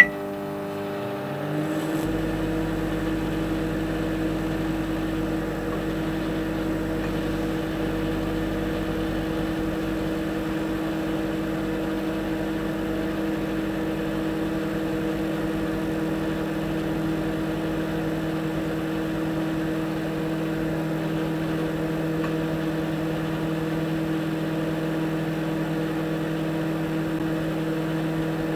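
Microwave oven running: a steady electric hum with a low drone beneath it that comes in about two seconds in and then holds unchanged.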